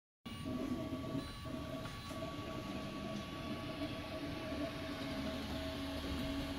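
Ultimaker 3D printer running a print: its motors whine in steady tones that break off and resume every second or so as the print head moves, over a steady hiss. The sound cuts in abruptly just after the start.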